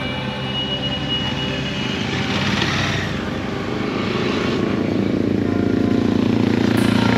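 Motorcycle engines idling steadily at the roadside while other motorcycles and a scooter ride past, their engine noise swelling as each goes by.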